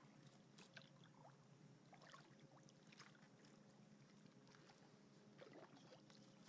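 Faint sounds of a kayak being paddled through still water: scattered drips and small splashes from the paddle, with light clicks.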